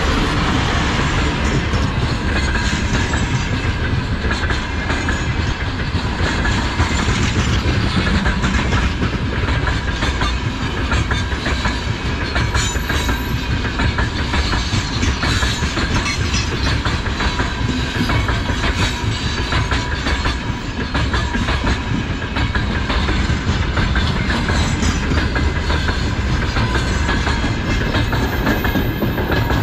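A freight train of open gondola wagons rolling past steadily, its wheels clattering over the rail joints in a continuous run of clicks, with a thin steady ringing tone underneath.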